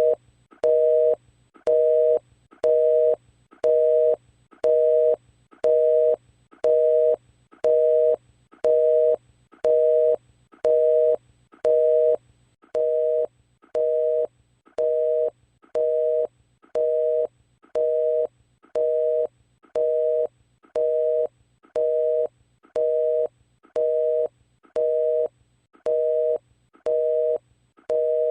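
Telephone busy signal: a two-tone beep switching on and off about once a second, the line engaged. It drops a little in loudness about twelve seconds in.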